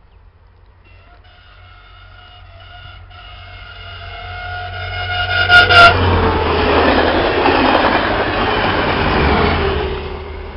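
AEG diesel multiple unit sounding its horn in several blasts as it approaches, getting louder, then passing close by with a loud rush of engine and wheel noise; two sharp clicks come as it reaches the microphone, and the sound drops away sharply near the end.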